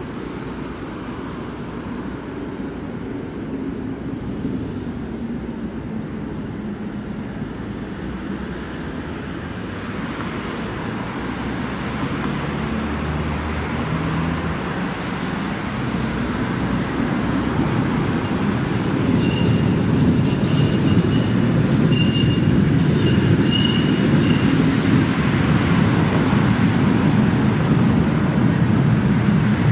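Tram running past on street track, a steady low rumble that grows louder through the second half. About two-thirds of the way in, its wheels squeal in a series of short high-pitched chirps.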